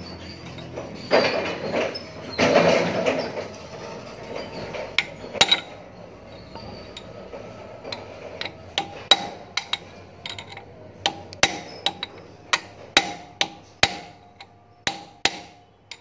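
Steel ball-peen hammer striking a steel punch held against the differential ring gear of a reach truck's drive wheel unit: about twenty sharp metallic strikes, each with a short ring, coming irregularly one or two a second, driving the gear off. Before the strikes there are a couple of seconds of scraping and handling noise.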